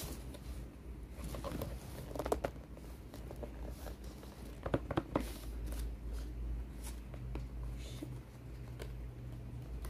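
A rigid white gift box being handled as someone works at a lid that is hard to open: scattered taps, clicks and light rustling of packaging, with the sharpest clicks around two seconds in and again about five seconds in.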